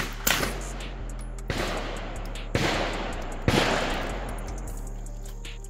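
CZ Scorpion EVO carbine firing four single shots about a second apart, each ringing out with a long echo.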